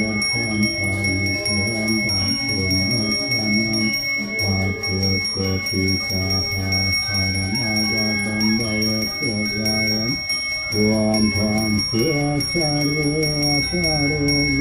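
Balinese genta (bajra), the priest's brass handbell, rung without pause, its high ringing held steady, under a man's chanted mantra.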